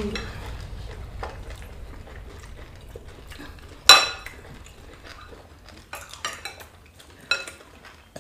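Cutlery clinking against plates and bowls while people eat: scattered short ringing clinks, the loudest about four seconds in and a few lighter ones near the end.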